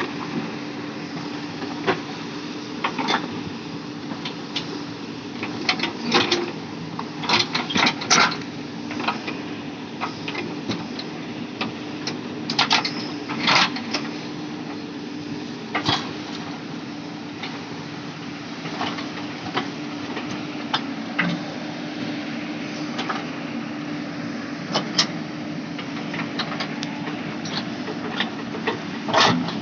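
JCB backhoe loader's diesel engine running steadily, with scattered sharp knocks and clanks, clustered about a fifth of the way in and again near the middle.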